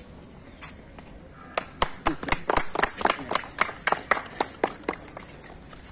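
A small group of people clapping their hands: a quick run of separate claps that starts about a second and a half in and stops near the end.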